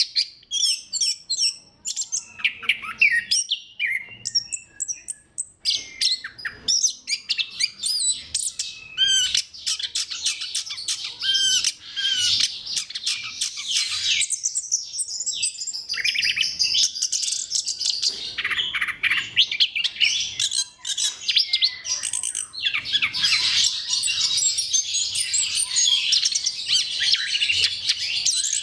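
Orange-headed thrush (anis kembang) singing a fast, varied song of chirps, trills and whistles, with a brief pause about halfway through.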